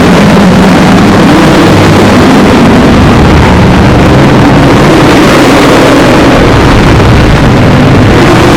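A sneezing voice clip run through stacked digital effects (vocoder, cubed pitch/distortion effects), so heavily distorted and clipped that it becomes a continuous, very loud, harsh noisy drone with wavering low tones.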